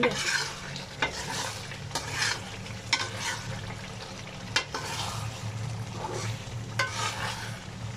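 Chicken karahi sizzling in a metal karahi while it is stirred and scraped with a slotted metal spoon, in irregular strokes about once a second, as the yogurt masala is fried down.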